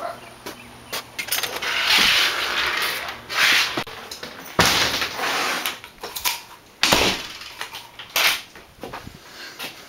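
Rustling and scraping with several sharp clunks and knocks, as a door is opened and shut and someone moves about.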